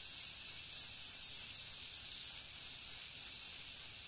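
Cricket-like insect chirping: a steady high-pitched trill that pulses a few times a second.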